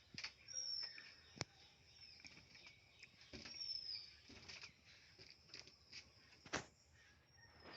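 Birds calling in the background with short, high, falling whistles about three times, with a couple of sharp clicks or knocks and faint rustling.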